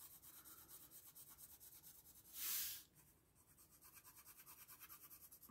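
Near silence: room tone, broken once about two and a half seconds in by a brief, soft rustle.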